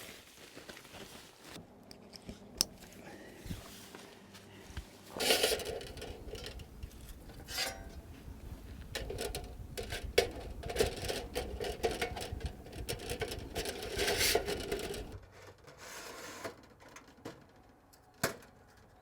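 Camp gear being handled while a hot tent's inner tent and metal tent stove are set up: scattered metallic clinks and knocks with stretches of scraping and rustling, busiest in the middle.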